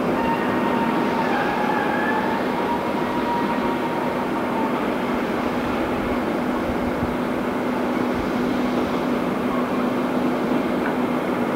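Heavy diesel machinery running steadily: a continuous engine drone under a dense mechanical rush, with a faint whine that fades out about four seconds in.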